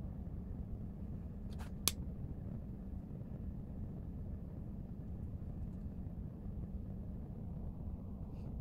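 Steady low rumbling background noise with a faint hum, broken by two short clicks close together about two seconds in.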